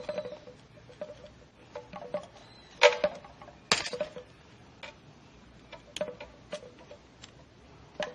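A small screwdriver clicking and scraping against the steel C-clip and splined output shaft of an automatic transmission as the clip is pried out of its groove. Scattered light metal ticks, with two sharper clicks about three and nearly four seconds in, some ringing briefly.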